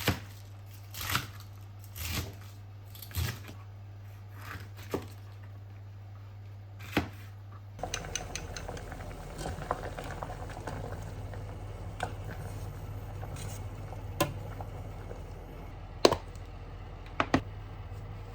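Things being handled by hand: short rustles and light knocks one after another, with a few sharper clacks near the end, over a steady low hum.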